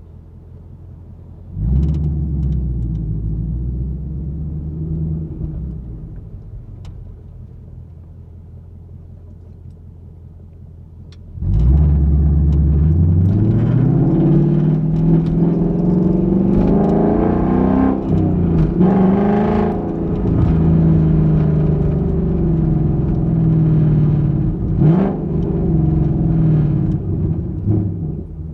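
2021 Ford Mustang GT's 5.0-litre V8 exhaust, heard from the trunk: idling low, a sudden short burst of throttle about two seconds in that dies away, then from about eleven seconds a loud hard acceleration, the pitch climbing, falling back and climbing again several times as the car pulls through the revs.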